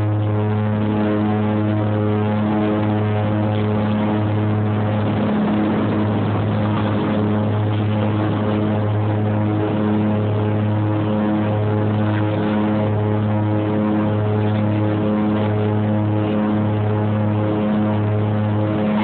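Twin Otter's two Pratt & Whitney PT6A turboprops and propellers at take-off power, heard from inside the cabin: a loud, steady, low propeller drone that pulses slowly as the two propellers beat against each other. A rougher rushing noise rises over it for a couple of seconds around five to seven seconds in, as the aircraft leaves the runway and climbs.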